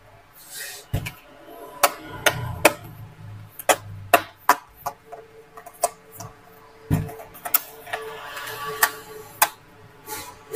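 Irregular sharp clicks and knocks of the Acer A514-52G laptop's plastic bottom cover being fitted back on and closed up.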